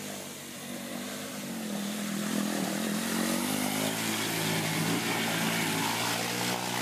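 Rebuilt three-wheeled ATC's engine revving hard under load as it is driven through deep mud, its pitch climbing about two seconds in and then holding high.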